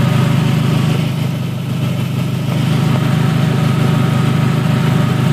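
Toyota Camry's 2.2-litre four-cylinder engine idling steadily, heard close up from the open engine bay.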